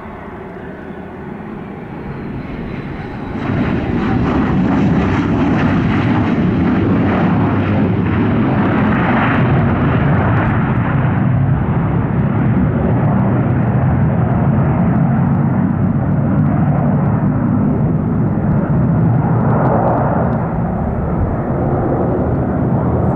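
Twin turbofan engines of a Learjet 45-type business jet during its landing rollout. The jet noise jumps up sharply about three and a half seconds in, stays loud and steady, and eases slightly near the end.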